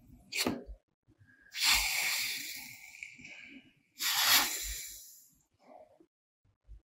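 A short click, then two hissing bursts about a second long each, starting suddenly and fading away.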